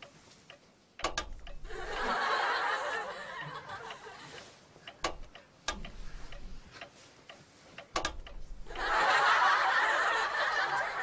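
Studio audience laughing in two spells, about two seconds in and again from near the end, with a few sharp clicks in between.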